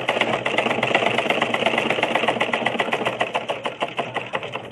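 Vintage black sewing machine stitching: a fast, even run of needle strokes, about ten a second, that fades and stops near the end.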